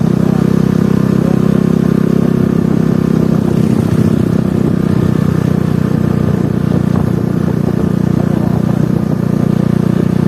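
Vehicle engine running at a steady speed, a constant drone with road noise and no change in pitch.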